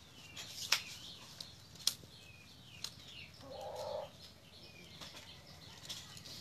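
Thin bamboo strips clicking and rustling against one another and the wooden table as the spokes of a woven basket base are pressed and tucked, a few sharp ticks in all. Faint bird chirps sound in the background, and a short low call comes just past the middle.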